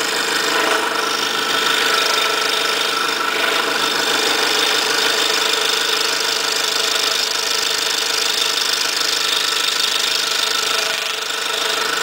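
Scroll saw running steadily, its small 2/0 blade stroking rapidly as it cuts slowly through a stack of three layers of 1/8-inch plywood.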